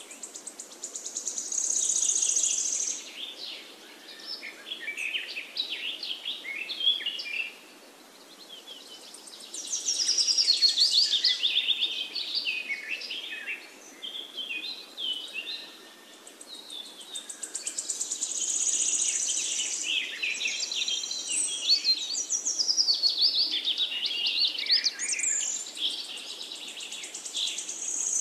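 Several birds chirping and singing in quick twittering trills, busier in some stretches and thinner in others.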